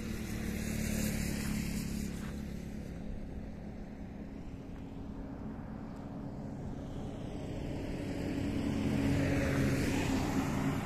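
Highway traffic: a steady engine hum that swells as a vehicle passes about a second in, then builds again near the end as a bus draws close.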